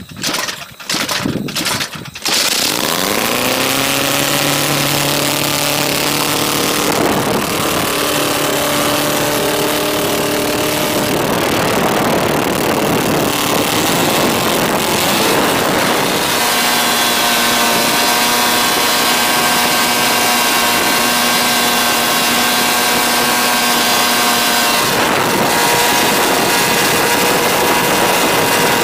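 DLE-222 four-cylinder two-stroke gas engine spinning a wooden propeller on a thrust stand. It sputters irregularly for about two seconds, then catches and runs very loud, its pitch climbing as it revs up. It keeps running with changes in speed partway through and again near the end.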